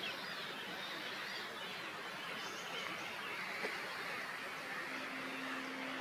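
A chorus of many small birds singing at once over a steady background hiss; a low steady hum joins near the end.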